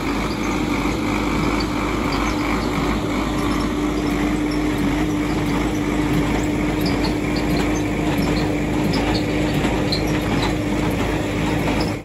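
Preet 6049 tractor engine running steadily under load as it drives a Massey Ferguson 1840 small square baler picking up straw, a constant hum with light ticking from the baler's works.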